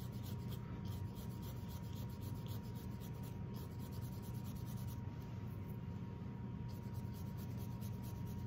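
Brush bristles scrubbing on a stained linen canvas in quick, repeated short strokes, wiping paint back toward the white of the linen to lighten a highlight. A low steady hum runs underneath.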